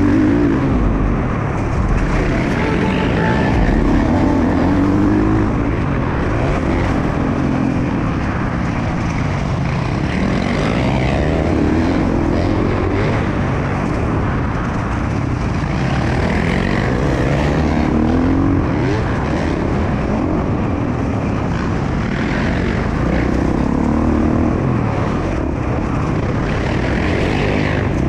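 Dirt bike engine heard from on board while riding a motocross track, revving up and falling back with the throttle every few seconds through corners and jumps.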